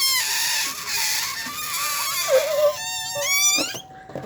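A girl's mock singing: a high, squeaky, breathy wavering squeal that breaks into a few rising squeals about three seconds in.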